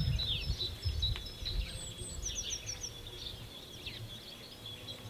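Outdoor birds chirping and calling, with a quick run of four or five short, high, falling notes about two seconds in. A low rumble underneath fades away over the first few seconds.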